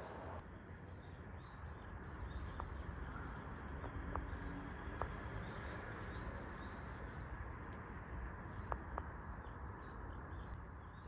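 Small birds chirping repeatedly in short calls over steady background noise, with a few faint clicks.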